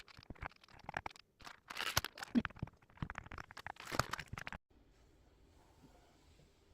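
Irregular crinkling, scraping and clicking as keyboard parts are handled. About two-thirds of the way through it cuts off suddenly to faint, steady room tone.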